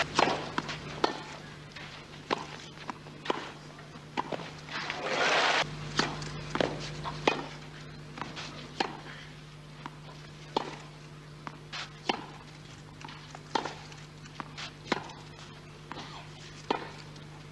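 Tennis rally on a clay court: sharp racket strikes on the ball, roughly one a second, with a brief burst of crowd noise about five seconds in, over a steady low hum.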